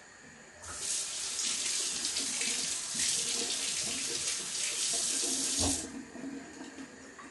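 Kitchen tap running into the sink for about five seconds, a steady hiss of water that stops suddenly, with a low knock just before it cuts off.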